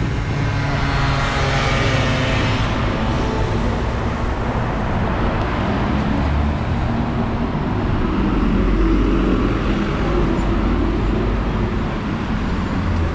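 City road traffic running steadily as cars pass on rain-wet roads. A heavier vehicle's low rumble swells about eight seconds in and fades a few seconds later.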